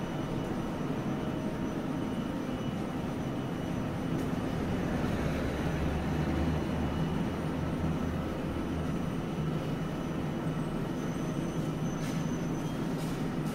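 A Kagoshima City streetcar, No. 2143, standing at the platform with its onboard equipment running in a steady drone, a low hum swelling for a few seconds midway. A few light clicks near the end.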